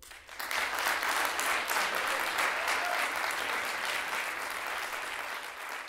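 Audience applauding, breaking out suddenly and easing off slowly toward the end.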